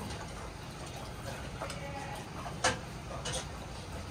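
A few scattered sharp metallic clicks and clinks around steel calf feeding bowls and a metal feeding rail, the loudest about two and a half seconds in, over a steady low rumble.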